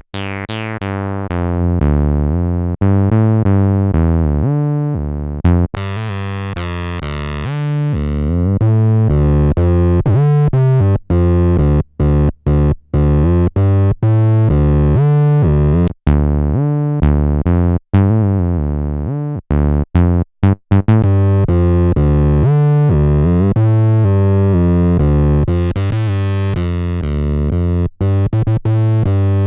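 Behringer TD-3 analog bass synthesizer playing a distorted acid bassline in the TB-303 style, with squelchy resonant filter sweeps. It is a sequenced line of short, gapped bass notes whose brightness swells and falls.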